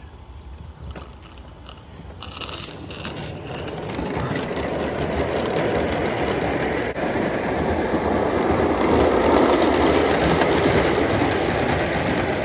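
A 1926 Bassett-Lowke O gauge live-steam locomotive and its coaches rolling over old Mamod track: a rattling rumble of wheels on rail that is faint at first and builds to loud as the train comes past close by.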